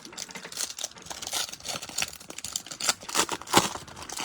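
Trading cards and their foil packaging handled by hand: a quick run of crinkles, flicks and clicks, with a couple of louder snaps a little past three seconds in.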